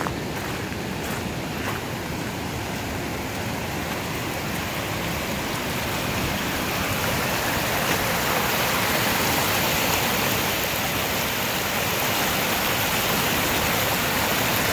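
Water pouring over a dam spillway into a lake: a steady rushing that grows louder about halfway through, then holds.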